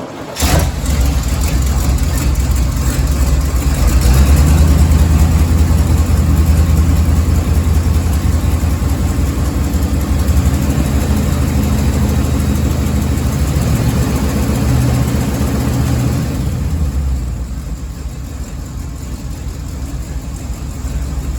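Chevrolet 454 big-block V8 starting up and running rough with a misfire. It runs louder for most of the time, then eases back to a quieter idle near the end.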